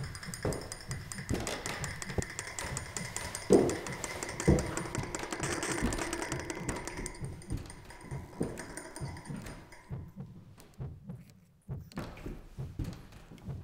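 Sparse, eerie horror-film score: irregular low knocks and thuds, roughly one a second, over a faint steady high whine. The sound nearly drops out for a moment near the end, then the knocks return.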